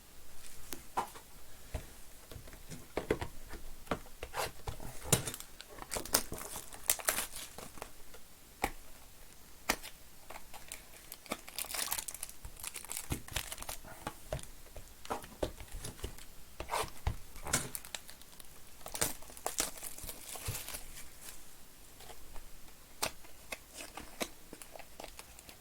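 Plastic and foil wrapping on boxes and packs of baseball cards being torn open and crumpled: a run of irregular crinkles and sharp rips.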